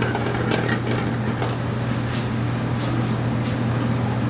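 Diced chorizo sizzling and simmering in white wine and garlic in a hot aluminium sauté pan over a gas burner, with scattered pops and a pan toss near the end. A steady low hum runs underneath.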